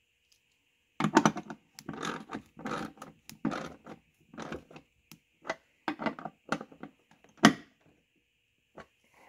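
Hand ratchet clicking in a run of short strokes as the door striker bolt is turned back in, with a washer behind it. There is about one stroke every half second, and one sharp metal clack near the end.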